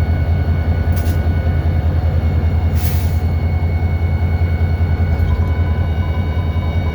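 EMD SD40-2 locomotive's turbocharged two-stroke V16 diesel running steadily under load, heard from inside the cab as a heavy, evenly pulsing drone with a steady high whine. Two brief hisses come about one and three seconds in.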